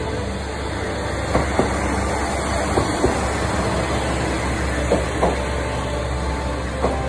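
JR West KiHa 120 diesel railcar passing close by, its engine rumbling steadily under pairs of wheel clacks over rail joints, four pairs in all.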